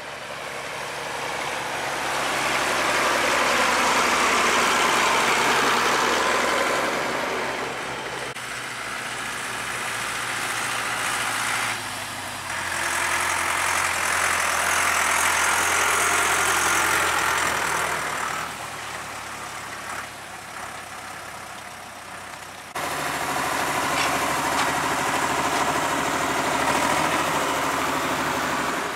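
Vintage tractor engine running steadily under a broad hiss of working machinery that swells and fades, changing abruptly about three-quarters of the way through.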